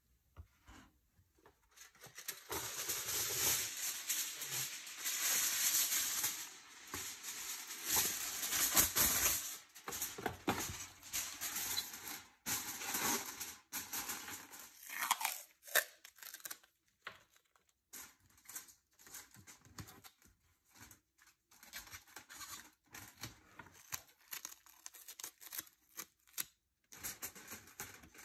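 Sheet of aluminium foil crinkling and rustling as gloved hands handle it and smooth it flat, dense for several seconds from about two seconds in, then in lighter, scattered crackles.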